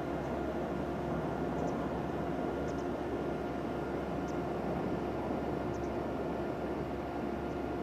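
Steady running noise of a jet aircraft's engine, an even rush with a few steady tones over it.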